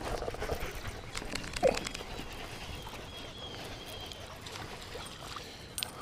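Quick clicks and rattles of fishing tackle as a small largemouth bass is brought in to the kayak, with a short squeak about a second and a half in.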